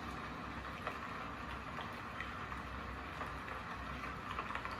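Steady, even hiss with a few faint scattered ticks: the background ambience sound of a Samsung Q70R TV ambient-mode scene, played through the TV's speakers.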